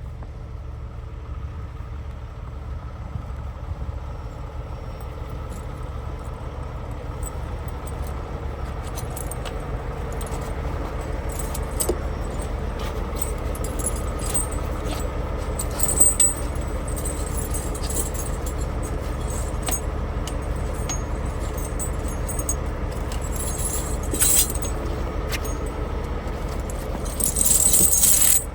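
Logging truck's diesel engine running with a steady low drone, with keys and loose parts jangling and rattling over it, and louder bursts of rattle twice in the second half and once more, longer, near the end.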